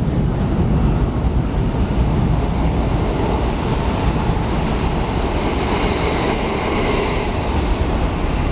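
Kintetsu 12200 series limited-express train passing through the station without stopping, a steady rumble of wheels on rail. The rail noise builds about three seconds in and is loudest around six to seven seconds in as the cars go past, then eases.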